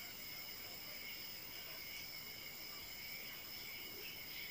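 Faint steady background noise with several constant high-pitched tones running through it: the room tone of the recording.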